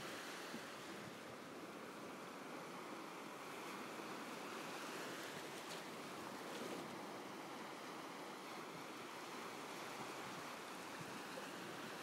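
Steady rush of sea surf breaking along a beach, an even noise with no distinct individual waves.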